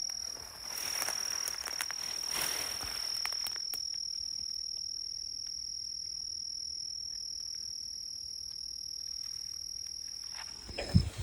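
An insect singing one steady, unbroken high-pitched note, like a cricket's trill, stopping just before the end. Rustling of brush and leaves over the first few seconds, and a brief knock near the end.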